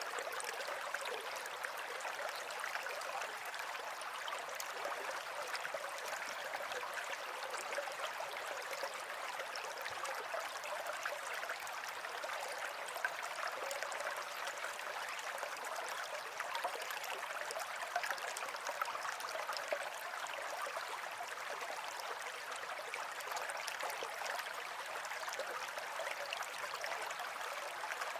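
A stream of water flowing steadily and without a break.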